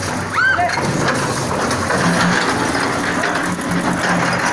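Tracked excavator's diesel engine running, with clattering and grinding as the machine slides and tips off the side of a low-loader trailer. A brief high-pitched sound about half a second in.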